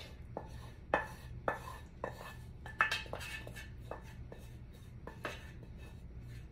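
Wooden spatula scraping and knocking against the inside of a skillet, a string of irregular light knocks and scrapes, as thick cream sauce is scraped out of the pan.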